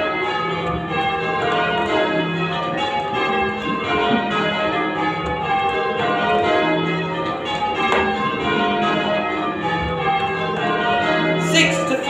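Church tower bells rung in a continuous, even round of strokes: change ringing, heard from the ringing room below the bells.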